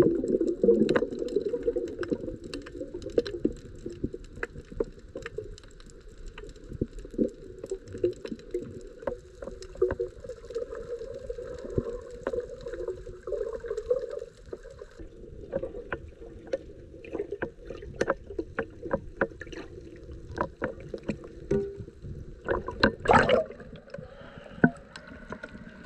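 Muffled underwater sound picked up by a camera on a shallow coral reef: a low, steady watery rush with many scattered sharp clicks and crackles. Near the end comes a louder splashing burst as the camera breaks the surface.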